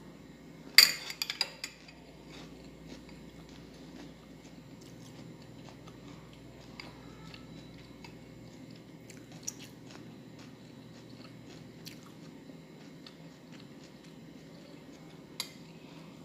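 Sweet corn kernels being eaten with a metal spoon from a glass bowl: a quick cluster of loud clicks about a second in, then a few single soft ticks spaced out, over a low steady hum.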